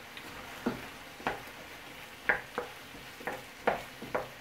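Wooden spoon stirring chunks of beef and vegetables in a frying pan: about eight irregular knocks and scrapes against the pan over a steady sizzle.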